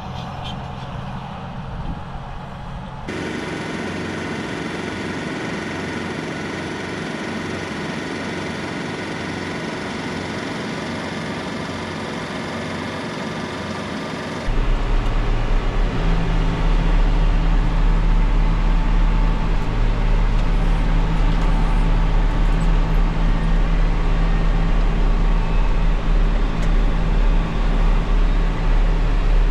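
Farm tractor engine running steadily in a hayfield. About halfway in it gets markedly louder, a deep, even engine drone heard from inside the tractor cab.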